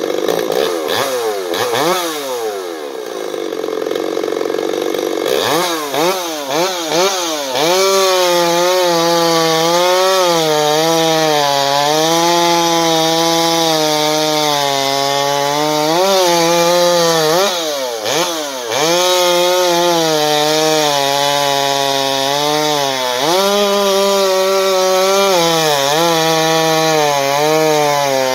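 Stihl MS 250 two-stroke chainsaw, freshly rebuilt with its muffler baffle removed and its timing advanced, revving up and then running at high revs while cutting wood. Several times the revs drop and climb again.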